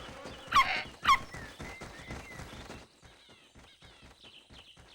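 Cartoon sound effects of quick footsteps moving through the forest, with two short high animal cries in the first second or so. After about three seconds the steps fade, leaving faint bird chirps.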